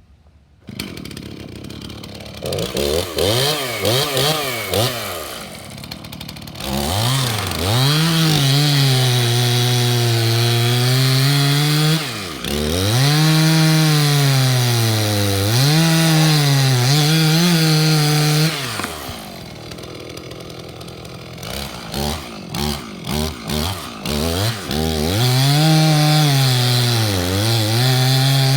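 Gas chainsaw starting about a second in and being blipped, then run at full throttle cutting through a large pecan log. It drops back to idle for a few seconds partway through, is blipped several times, then goes back to full throttle in the cut.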